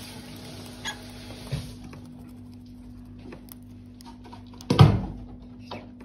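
Cockatiel pecking and foraging among seed husks on the cage floor: scattered small clicks and taps, with one loud thump about five seconds in.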